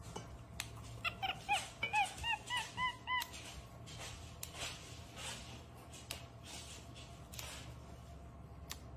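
Fresh green beans snapping crisply in a capuchin monkey's hands, at irregular intervals. Between about one and three seconds in comes a quick run of about ten short, high chirps from the capuchin.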